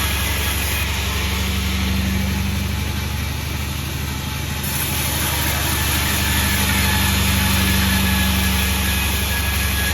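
Pandan36 sawmill's engine running steadily, its loudness dipping slightly about four seconds in and then rising again.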